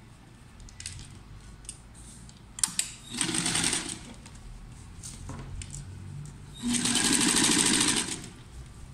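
Single-needle sewing machine stitching in two short runs: a brief one about three seconds in and a longer one of just over a second near the end. A few sharp clicks come before them.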